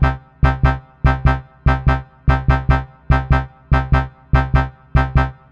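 Background music: a synthesizer-keyboard riff of short, punchy notes over a deep bass, repeating in a steady syncopated rhythm.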